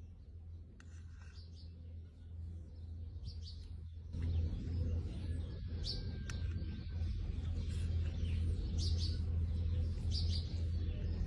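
Small birds chirping in short scattered calls over a steady low rumble that grows louder about four seconds in.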